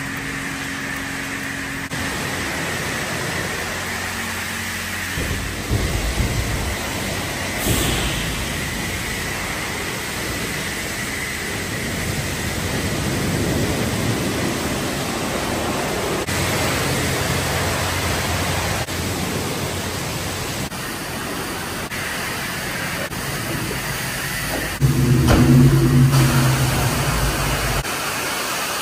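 Self-serve car wash pressure-washer wand spraying water onto a car's body: a steady hiss of spray. About 25 seconds in, a louder low hum joins it for a second or two.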